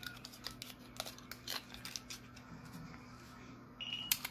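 Long acrylic nails tapping and clicking against small plastic glitter jars: a string of light, irregular clicks, with a short high tone a little before the end.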